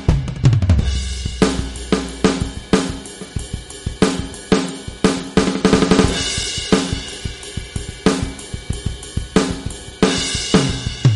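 NUX DP-2000 electronic drum pad played with sticks, sounding its rock drum-kit voices: kick, snare, hi-hat and cymbal hits in a quick groove with fills. A deep hit with a falling pitch comes right at the start and again near the end.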